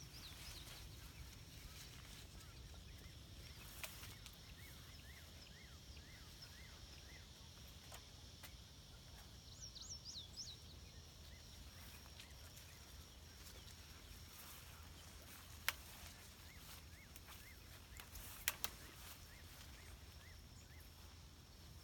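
Faint outdoor ambience: small birds chirping in short repeated series, a steady high insect drone, and a few sharp clicks.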